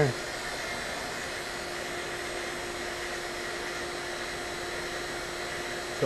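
Refrigeration vacuum pump running steadily with an even hum and hiss while evacuating the ice machine's refrigerant circuit.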